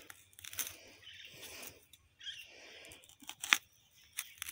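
Machete blade working and scraping into the fibrous base of a traveler's tree to split off an offshoot: a series of soft scrapes and scuffs, with one sharp click about three and a half seconds in.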